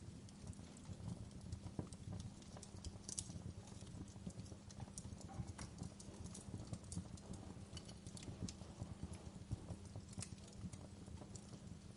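Wood fire in a fireplace crackling: irregular sharp pops and snaps, some louder than others, over a steady low rumble of burning.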